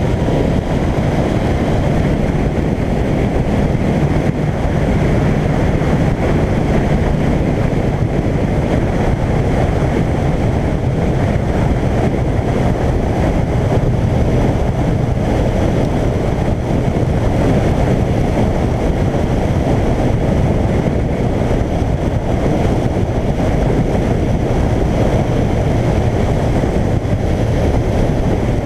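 Suzuki GSX1400 inline-four motorcycle cruising at a steady speed, its engine hum mixed with wind rushing over the microphone and tyres on a wet road. The sound is loud and steady, with no change in engine speed.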